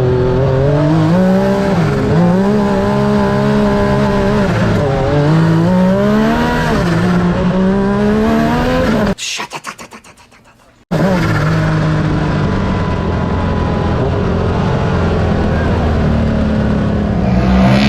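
Yamaha YXZ1000R three-cylinder UTV engine at racing pace, its pitch climbing and dropping repeatedly through gear changes. About nine seconds in the sound cuts out for nearly two seconds, then the engine carries on at a steadier pitch.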